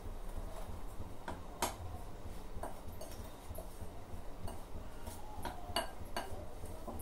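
Metal spoon stirring a dry flour and milk-powder mix in a glass bowl, with light irregular clinks of the spoon against the glass.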